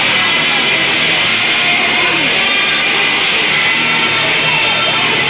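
Loud rock music with electric guitar, playing steadily without a break.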